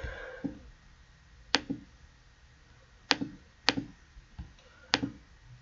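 Computer mouse button clicking: four sharp clicks, spaced about a second or more apart, with a couple of fainter ones between.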